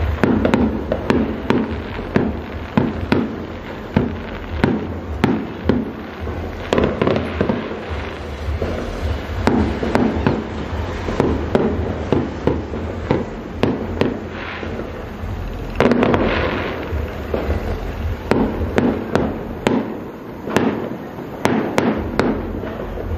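Aerial fireworks bursting in rapid succession: a continuous run of sharp bangs, two or three a second.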